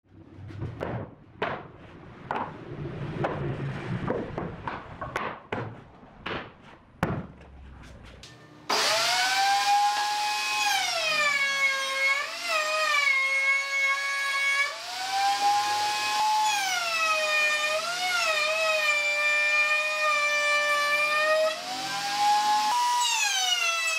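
A series of irregular wooden knocks and clatters, then about eight seconds in a table saw comes in abruptly with a loud whine whose pitch sags and recovers again and again as the blade bites into a wooden board under load.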